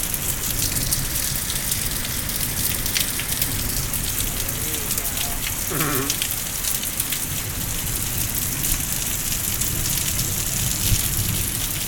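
Heavy rain pouring down, a steady dense hiss with no letup.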